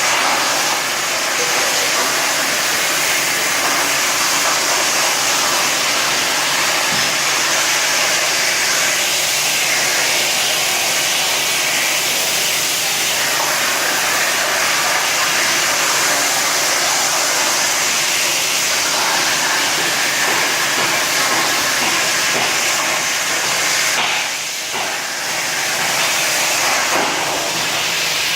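Procut 25 plasma cutter on a CNC table cutting, giving a steady loud hiss of the plasma arc and compressed air, briefly dipping near the end.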